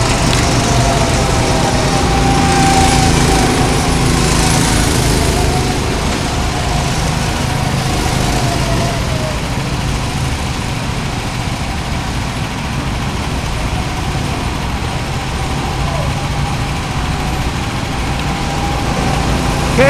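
Go-kart's small petrol engine running steadily, heard from on board while driving. A faint whine drifts slowly down in pitch over the first half.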